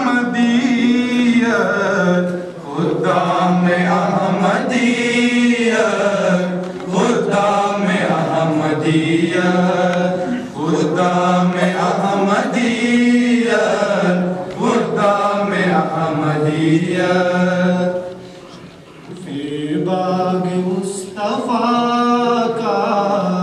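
A group of young men chanting an Urdu tarana (nazm) together without instruments, in long held melodic phrases. There is a brief break between lines about three-quarters of the way through.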